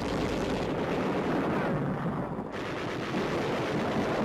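Belt-fed machine guns firing sustained, rapid bursts that run together into continuous gunfire.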